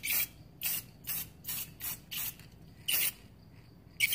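Aerosol spray paint can hissing in a run of short bursts, about seven quick sprays two or three a second, with a brief pause near the end.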